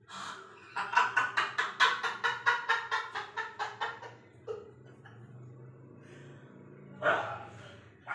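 A man's rapid, staccato villain's laugh, about five short bursts a second for some three seconds, then trailing off. A short vocal burst comes near the end.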